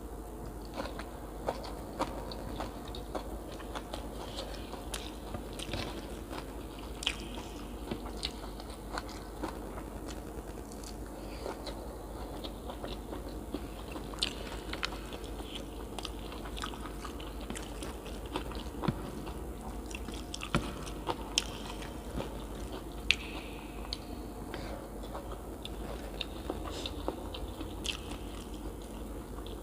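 A person chewing and biting food close to the microphone, with frequent short crunches and wet mouth clicks at irregular intervals.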